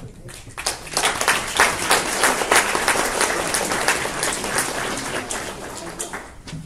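Audience applauding. It starts about half a second in, builds quickly and dies away near the end.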